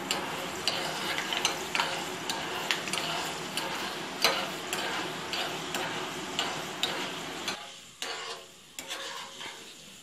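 Fenugreek seeds frying in hot mustard oil in a small pan, sizzling while a metal spoon stirs them, with many small clicks. The sizzle drops off about three-quarters of the way through as the seeds brown.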